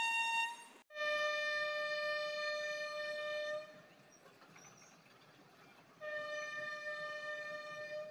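Railway locomotive horn sounding in three blasts: a short higher-pitched one cut off just under a second in, then a longer lower-pitched one of about three seconds, and another of about two seconds near the end.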